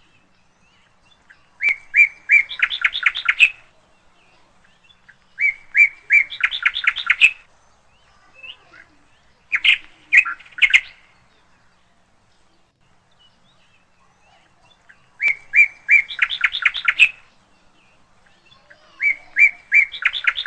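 A songbird singing the same phrase five times, a few seconds apart. Each phrase is a few short, even notes followed by a quicker run of brighter notes, lasting about two seconds; the last is still going at the end.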